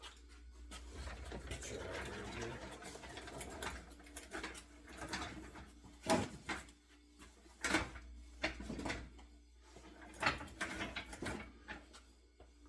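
Hand tools being handled: a few seconds of rubbing and shuffling, then a series of sharp knocks as they are picked up and set down.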